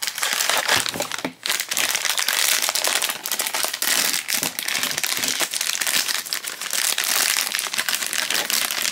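A Pop Mart blind box's sealed foil bag being torn open and crumpled in the hands: continuous crinkling and crackling, with a short pause about a second and a half in.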